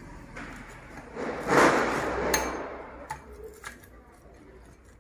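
Things being handled on a table: a brief rustling scrape, then a few light clicks and knocks as objects are set down.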